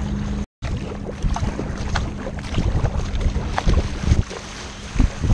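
Water rushing and splashing against a sea kayak's hull and deck as it surfs through a wave, with irregular splashes from the paddle and wind buffeting the microphone. The sound drops out briefly about half a second in, and the splashing peaks near the end.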